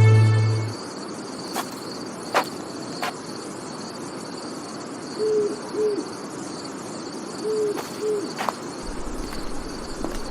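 Night ambience: crickets chirping steadily while an owl hoots in two pairs of short hoots, one pair about five seconds in and another near eight seconds. A few faint sharp clicks fall in between.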